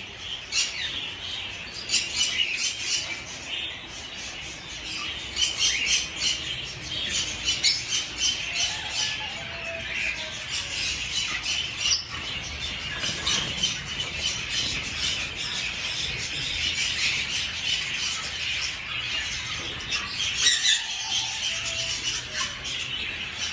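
A dense chorus of caged aviary birds, many short high chirps and squawks overlapping with no pause.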